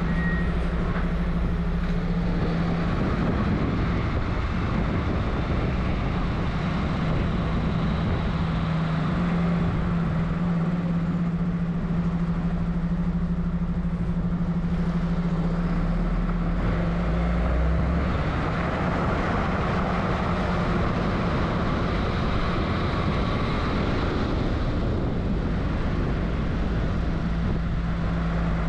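Heavy tow truck driving at speed: a steady low engine drone under loud road noise.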